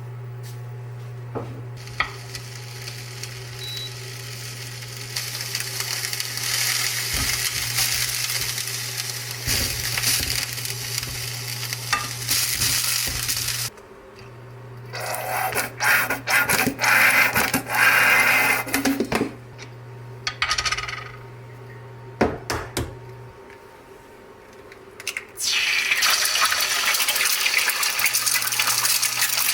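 Home kitchen cooking sounds: food sizzling in a frying pan, with clinks and scrapes of utensils against pans and dishes. Underneath runs a steady low hum that stops about two-thirds of the way through.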